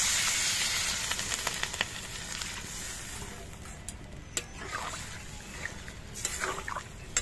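Water poured into a hot karai of oil-fried potatoes and spice paste, hissing and sizzling loudly as it hits, then settling into a softer steady sizzle. A metal spatula clinks and scrapes against the pan a few times in the second half.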